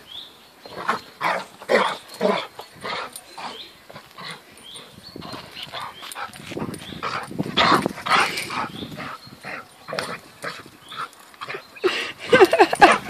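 A dog making short, repeated vocal sounds while playing with a toy, louder near the end.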